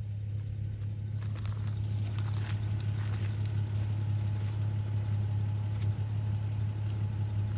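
Nissan GQ Patrol's TB42 petrol straight-six running at low revs as the four-wheel drive crawls slowly over a rocky creek crossing. A few stones click under the tyres.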